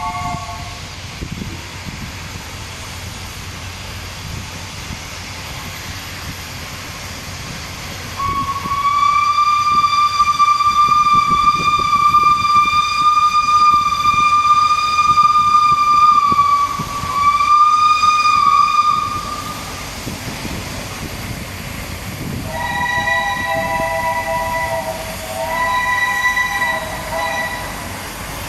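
Heritage train sounding its whistles over the rumble of the running train. A long single-pitched whistle is held for about eleven seconds with a brief break near its end. A few seconds later a shorter three-note chord sounds twice.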